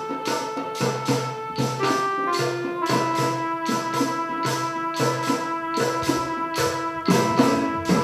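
Music with a tambourine keeping a steady beat, about two to three hits a second, over held melody notes.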